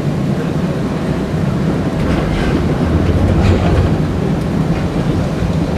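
UTDC/Hawker Siddeley CLRV streetcar running along the track, heard from inside the car: a steady low rumble from the wheels and running gear, with a few rail clacks and rattles partway through.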